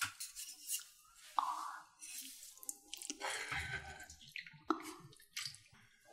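Wooden spoon stirring and ladling broth in an earthenware pot of sundae-guk, with the soup sloshing and dripping back off the spoon and a few light clicks of the spoon against the pot.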